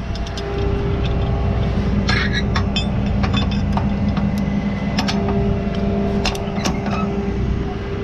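Tow truck engine running steadily, with several sharp metallic clinks from a steel shackle and hook hardware being handled.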